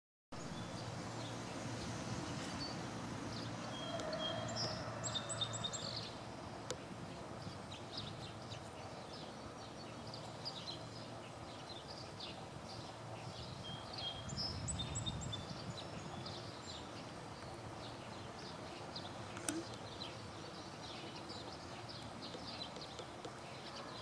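Outdoor ambience of small songbirds chirping, with one bird singing a short, high, descending song phrase twice, about ten seconds apart. A low background rumble runs underneath.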